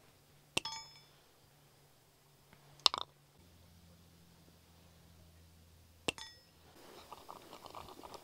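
Sharp metallic clinks of a bullet mold and iron ladle being handled while casting lead balls: three clinks a few seconds apart, each with a short ring, the middle one loudest. Near the end comes a quick patter of faint small clicks.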